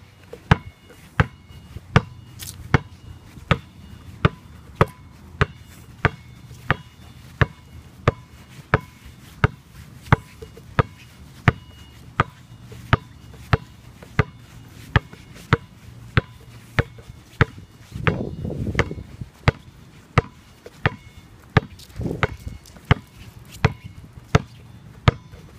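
A glow-in-the-dark rubber basketball dribbled on an asphalt driveway: steady, even bounces, about one every 0.6 seconds, each with a slight hollow ring.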